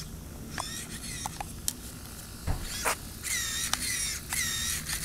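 Exceed RC car's brushless motor giving short, high-pitched whines that glide up and down in pitch, one about half a second in and then about two a second in the second half, with a few sharp clicks between. The motor is stuttering because the speed controller has overheated running on a LiPo battery.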